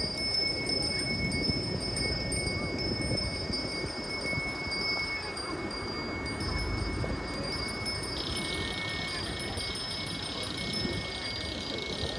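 Outdoor crowd ambience of a walking procession: a low murmur and shuffling with a steady, thin, high ringing tone throughout. About eight seconds in, a higher hissing buzz joins and carries on.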